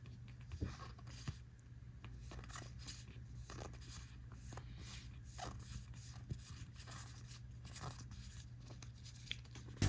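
Faint rustling, crinkling and small clicks of a trading-card booster pack being torn open and its cards slid through the hands, over a steady low hum.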